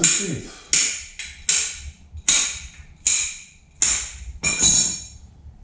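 Hammer striking metal about seven times at an even pace, roughly one blow every three-quarters of a second, each blow ringing briefly.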